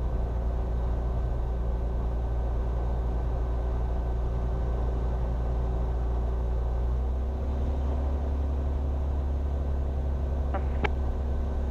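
Cirrus SR22's six-cylinder piston engine running at taxi power, a steady drone whose note shifts about seven seconds in. Two short clicks come near the end.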